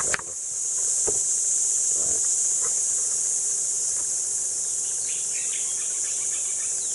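A dense chorus of insects making a steady, high-pitched hiss, with a few faint knocks in the first couple of seconds.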